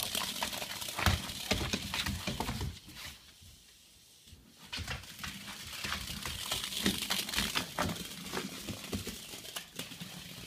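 A Vizsla scrabbling on a hardwood floor as it chases a small plastic HexBug toy: scattered clicks of claws and the toy clattering, with rustling and crinkling. It goes quiet for about a second and a half a few seconds in, then the scrabbling picks up again.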